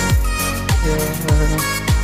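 Background music with a steady beat: a deep, pitch-dropping kick drum about every 0.6 seconds under sustained melodic tones.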